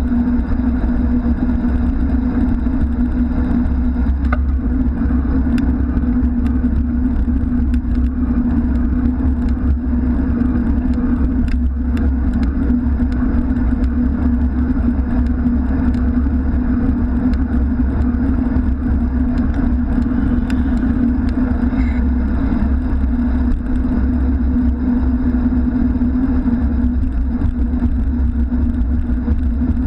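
Steady low rumble of a bicycle riding along a highway-side cycle lane: tyre and wind noise on a bike-mounted camera, with motor traffic running alongside. A few faint clicks are heard.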